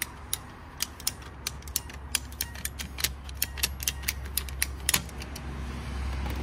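Hand-held ratcheting PVC pipe cutter clicking as it is squeezed shut on white PVC pipe, about four sharp clicks a second, with a louder click about five seconds in before the clicking stops.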